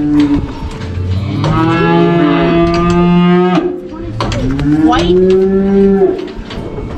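Cattle bawling: a long, drawn-out moo starting about a second in and lasting nearly three seconds, then a second long moo, with light knocks in between.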